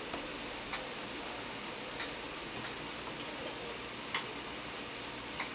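Gloved hands working minced meat: a handful of sharp, irregular taps as portions are scooped from a stainless-steel tray and set onto a digital kitchen scale, over a steady hiss.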